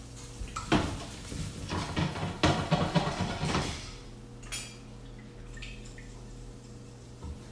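Kitchen clatter of pans, dishes and metal utensils being handled, with a run of quick knocks and rattles lasting about three seconds, then a few light clicks. A steady low hum runs underneath.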